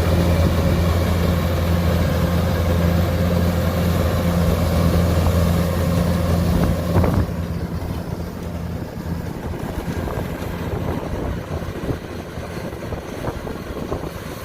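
Kubota DC105X combine harvester's diesel engine running with a loud, steady low hum; about halfway through the hum drops off sharply, leaving quieter machine noise.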